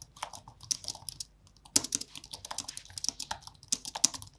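Typing on a computer keyboard: quick, irregular keystroke clicks, several a second, with a brief pause a little after the first second.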